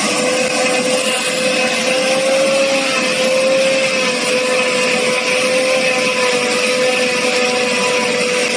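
Corn harvester running at work: a steady mechanical whine that wavers slightly in pitch, over a continuous rushing noise.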